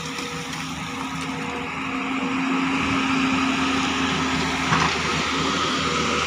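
JCB crawler excavator's diesel engine running under working load, with a steady whine over it, getting louder about two seconds in as the boom lifts the bucket of earth.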